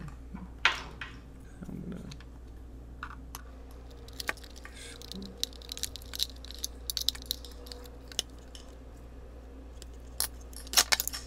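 Scattered small clicks and knocks of 3D-printed plastic frame parts being handled and a screwdriver driving bolts into them, with the loudest knocks about a second in and near the end.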